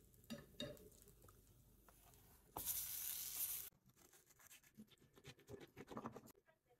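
A knife sawing through a pan-toasted tortilla wrap on a wooden cutting board: a quick run of small crisp crackles and scrapes. Before it, a loud hiss lasts about a second.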